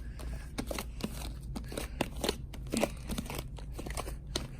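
Homemade slime being kneaded and squished by hand, a quick irregular run of sticky clicks, pops and crackles; the slime is still not fully activated.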